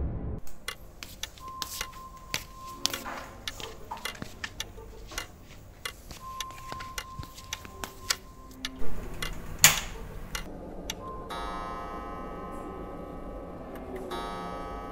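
Suspense film score: irregular clock-like ticking and clicks with a brief held high tone. Two sharp clicks about nine and ten seconds in are the loudest sounds. A sustained bell-like chord enters about eleven seconds in and holds.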